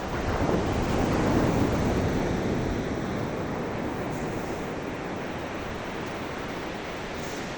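Ocean waves: a wave breaks and washes in right at the start, loudest after a second or so, then slowly fades back into a steady surf hiss.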